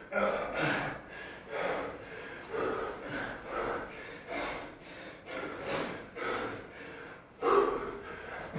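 Men's heavy, strained breathing from hard physical effort, with gasps and snorting breaths coming every half second to a second; the loudest gasp comes near the end.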